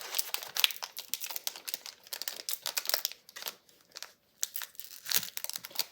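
Plastic foil trading-card pack wrapper being crinkled and torn open by hand, a run of irregular crackles with a short pause about four seconds in.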